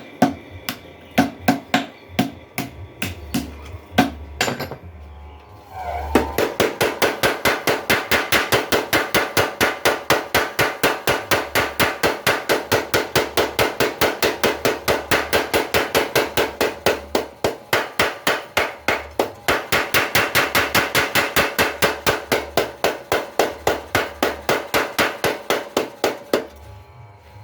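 Blacksmith's mechanical power hammer striking: a few separate blows, then from about six seconds in a steady run of fast, even strokes, about four a second, that stops shortly before the end.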